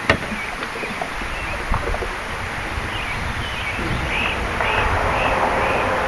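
Fishing reel working while a small northern pike is played in: a short sharp click at the start, then from about halfway a steady whirr with a short squeak about twice a second.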